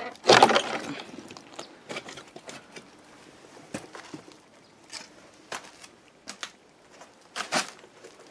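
A loud rough noise lasting about half a second near the start, then scattered, irregular footsteps on rubble and debris.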